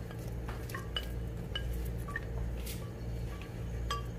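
A spatula clinking and scraping against a serving dish as chopped salad is pushed out of it: light, separate clinks about every half second.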